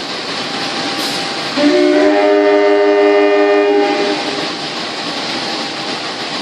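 Diesel locomotive horn blowing one chord of several tones for about two seconds, over the steady running noise of a train pulling out.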